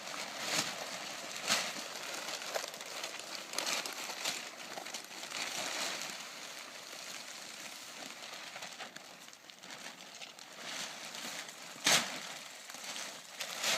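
Lumber tarps being handled, rustling and crinkling, with scattered sharp clicks and one louder click near the end.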